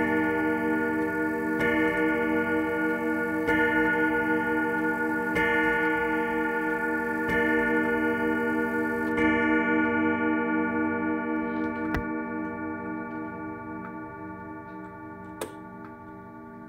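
1981 Howard Miller grandfather clock's chime hammers striking the chimes in slow, even strokes about every two seconds, five times, the last about nine seconds in. The ringing then fades away over steady clock ticking.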